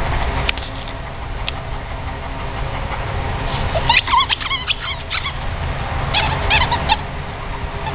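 Rubber dog toy squeaking in quick runs as a dog bites it, starting about four seconds in and again about two seconds later, over a steady low rumble.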